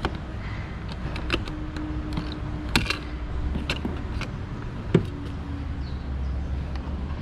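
Sharp clicks and taps of a thin metal pick tool against the plastic interior door trim of a Mazda CX-5, as trim pieces around the door handle are pried out, with the two loudest clicks about three and five seconds in. A steady low rumble runs underneath.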